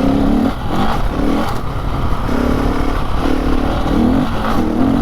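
Motorcycle engine under throttle on a dirt road, its note cutting in and out several times as the rider rolls on and off the throttle, over steady wind and gravel rumble on the helmet microphone.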